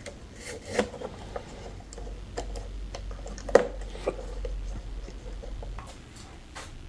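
Scattered light clicks and taps of hands working on a wooden guitar body during a glue-up, with one sharper knock about three and a half seconds in, over a faint low hum.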